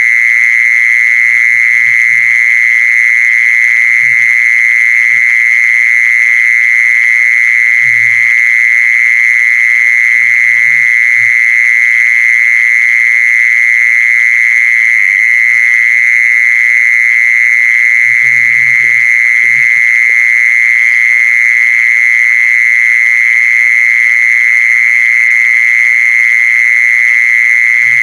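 A recorded owl-calling lure sound: a continuous high-pitched hissing buzz that holds steady without a break, with faint low knocks and rumbles underneath.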